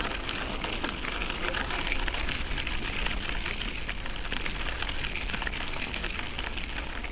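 Steady rushing hiss of riding a bicycle: wind across the microphone and tyres on the road, with a fine crackly texture.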